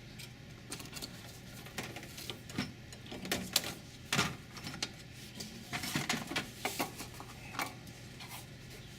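Irregular clicks, knocks and rustles of hands handling a light table and its power cord, working the switch and following the cord to plug it in.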